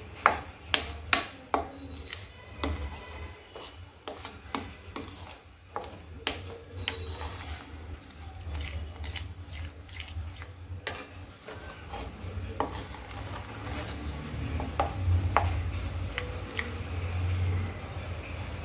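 A metal spoon stirring and scraping a thick mixture of roasted wheat and pearl-millet flour in sugar syrup around a stainless steel kadai, with frequent clinks and rasps against the pan over a low steady hum.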